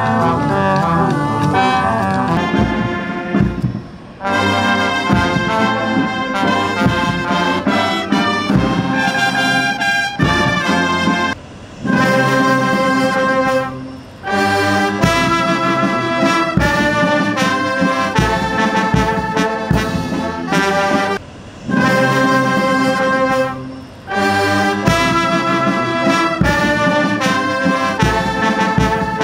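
Brass band playing a slow, stately piece in phrases, broken by a few short pauses.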